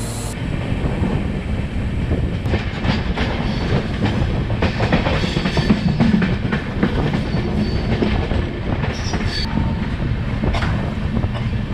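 Passenger train running at speed, heard from an open coach door: a steady rumble with the wheels clacking over rail joints.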